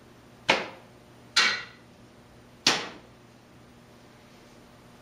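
Three sharp hits of a sword cutting onto a training dummy's arm, one after another over about two seconds, each a quick crack that dies away fast, the second with a brief ring.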